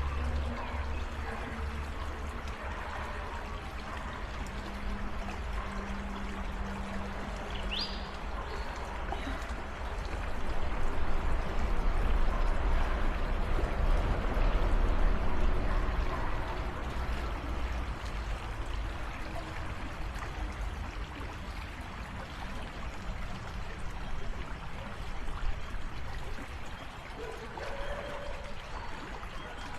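Creek water flowing and trickling over shallows, swelling a little louder for a few seconds in the middle, with one brief high chirp about eight seconds in.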